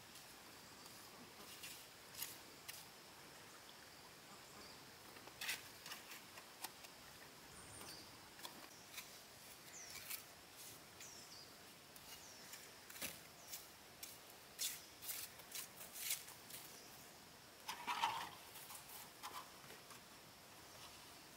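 Faint scattered clicks, scrapes and knocks of a trowel working mortar and stones onto a stone pillar, with the loudest knock about three seconds before the end.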